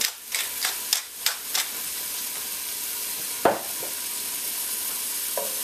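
Sliced onion and garlic sizzling steadily in hot coconut oil in a wide pan, sweating down at medium-high heat. A hand pepper grinder clicks several times in the first second and a half, and there is a single knock about three and a half seconds in.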